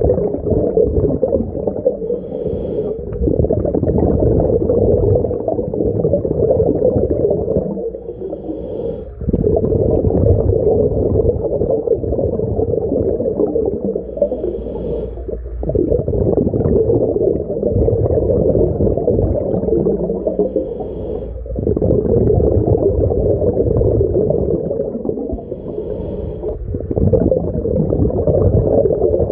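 A scuba diver breathing through a regulator underwater, in a cycle about every six seconds, five times over. Long stretches of loud, low bubbling from the exhaled air alternate with short quieter gaps that each hold a brief hiss as he draws a breath.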